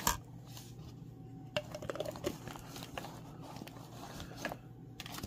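Scattered light clicks, knocks and rustling as telescope parts and plastic lens caps are handled and set down in a nylon carrying case, over a faint steady low hum.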